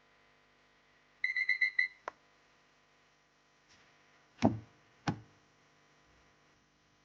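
A short rapid run of high-pitched ticks, then a sharp click, then two loud knocks about a second apart, over a faint steady hum.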